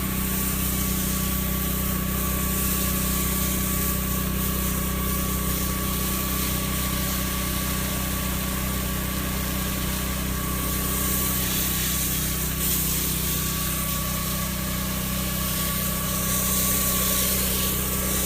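Engine-driven pressure-washing pump running steadily, with the hiss of a sprayed sodium hypochlorite (bleach) solution that swells about two-thirds of the way in and again near the end.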